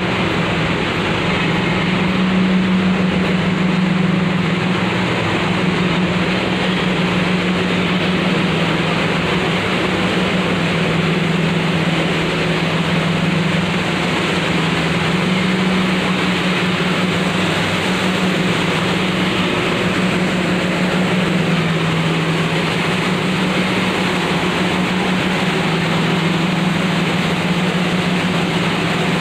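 Turmeric grinding machine running steadily: a constant low hum under an even rushing noise, with no change in speed.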